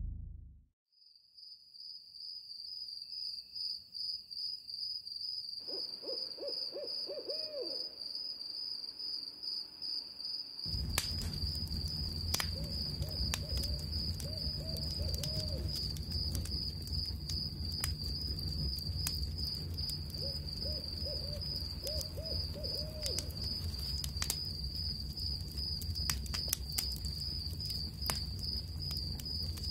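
Night-time nature soundscape: a steady, high, pulsing insect-like trill with groups of owl hoots, first about six seconds in and twice more later. A low rumble with scattered clicks comes in about ten seconds in.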